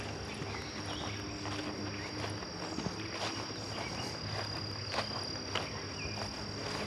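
Insects droning steadily at one high pitch, with a few short songbird chirps and the odd footstep on the trail.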